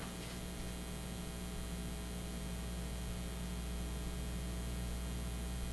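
Steady low electrical mains hum with a faint hiss over it.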